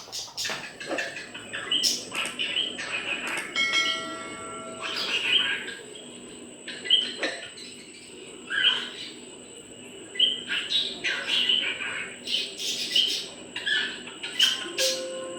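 Cockatiel chirping and calling in short repeated bursts, one every second or two, with one held whistled note about four seconds in.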